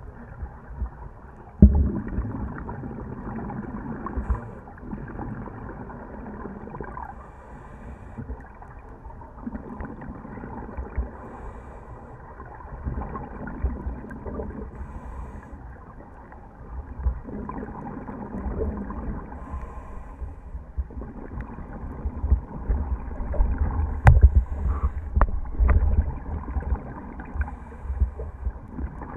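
Scuba regulator breathing heard through an underwater camera housing: muffled bursts of bubbling exhaled air every few seconds. A few sharp knocks, the loudest about two seconds in and about twenty-four seconds in, from handling the housing.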